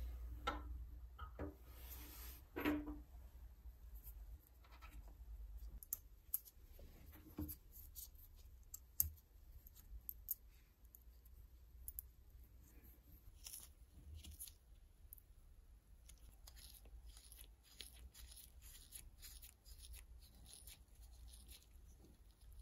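Faint clicks and light clinks of small nickel-plated metal sharpener parts being handled and fitted together by hand on a wooden tabletop, a few sharper taps among them, over a low steady hum.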